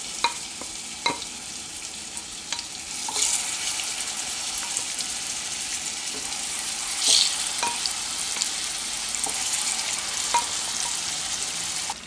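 Spice-coated chicken pieces frying in hot oil in a pan, a steady sizzle, with scattered sharp clicks of a utensil against the pan as they are stirred. The sizzle briefly swells louder about three seconds in and again about seven seconds in.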